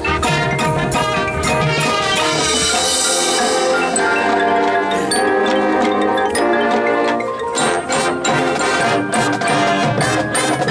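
Marching band front ensemble playing a mallet percussion passage: marimbas and other keyboard percussion sounding many quick struck notes over sustained pitched tones.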